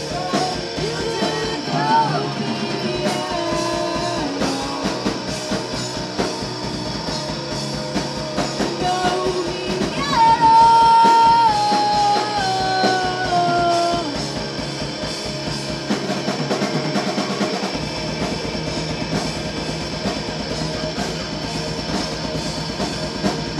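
Rock band playing live in a rehearsal room: electric guitar, bass and drum kit with a sung vocal line. About ten seconds in the singer holds a loud high note that steps down in pitch, and the last part is instrumental.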